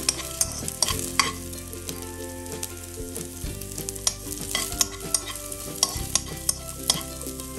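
Vegetables sizzling as they are stir-fried in a little oil, with a spatula clicking and scraping against the pan several times a second.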